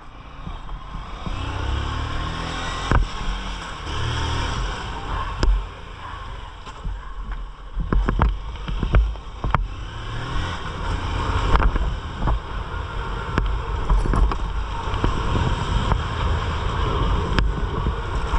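Honda CG 160 Titan motorcycle's single-cylinder engine running while ridden, its pitch rising and falling with the throttle, under wind noise on the microphone, with several sharp knocks.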